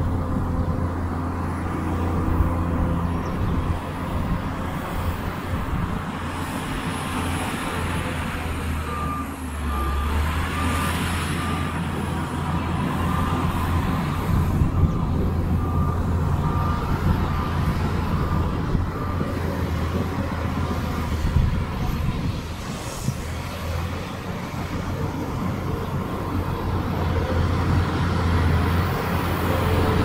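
Heavy diesel earthmoving machinery running steadily under load. A reversing alarm beeps at an even pace from about nine seconds in until about twenty seconds in.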